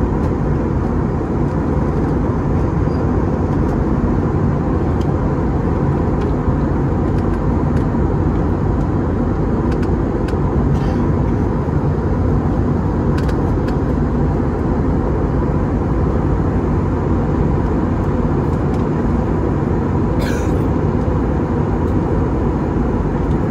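Steady cabin noise of an airliner in flight: an even rumble of engines and airflow with a faint steady whine above it and a few faint clicks.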